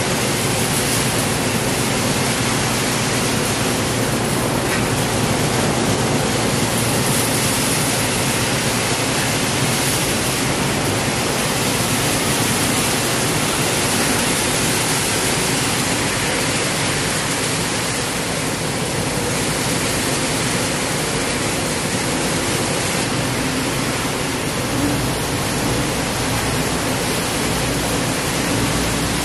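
Steady, loud noise of lithium battery recycling machinery running: an even hiss with a faint low hum beneath, unchanging throughout.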